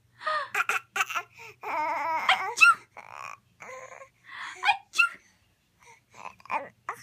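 Seven-month-old baby babbling and laughing in short bursts, several of them high squeals. A longer, wavering babble comes about two seconds in.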